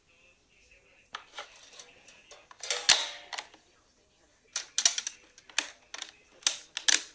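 Plastic toy pieces clicking and clattering as they are handled, with a louder rustling burst about three seconds in and a quick run of sharp clicks in the second half.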